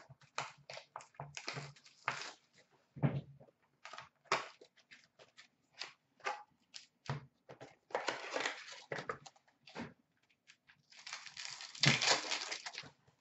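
Hockey card pack wrappers crinkling and rustling in the hands, in scattered short crackles, with a wrapper torn open in a longer, louder rip near the end.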